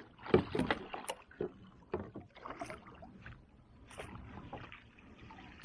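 Irregular knocks, clunks and splashy noises of a hooked trout being brought alongside and landed into a kayak: gear and fish bumping against the hull, busiest in the first second or so.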